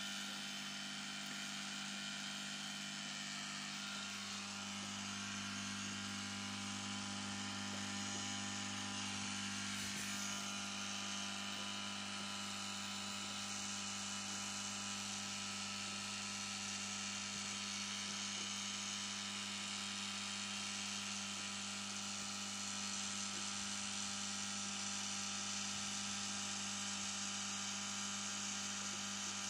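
Aquarium pump giving a steady low electric hum with a hiss above it.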